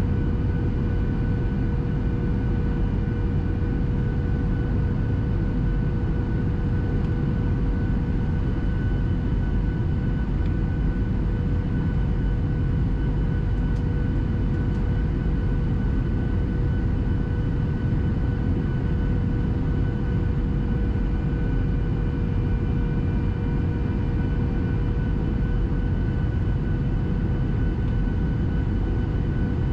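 Boeing 737 cabin noise heard at a window seat over the wing in flight: a steady low rumble of engines and airflow, with a constant even engine hum.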